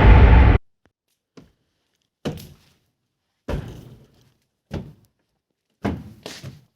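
Loud music cuts off abruptly about half a second in, followed by a series of six dull thunks spaced roughly a second apart, the first one faint.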